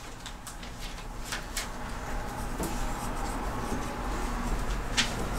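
Dry-erase marker writing on a whiteboard: a few short, scratchy strokes over a low, steady hum.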